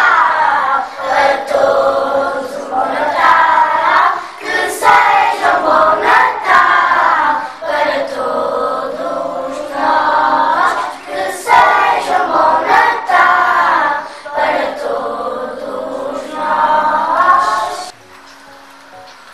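A group of schoolchildren singing a Christmas song together as a class choir. The singing stops suddenly about 18 seconds in.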